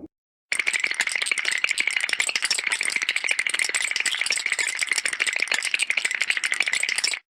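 A dense, fast rattling that starts about half a second in, runs without a break and cuts off suddenly near the end.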